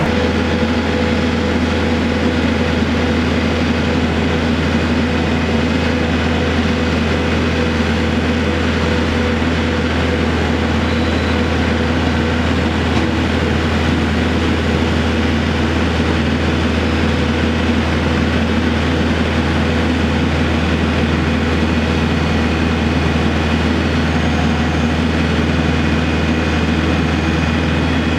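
Kubota compact tractors' diesel engines running steadily, a constant low drone that does not change.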